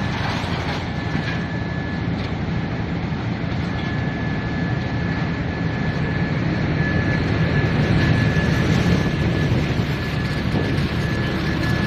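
Disc wood chipper running steadily: a dense low mechanical drone with a thin, steady high whine above it.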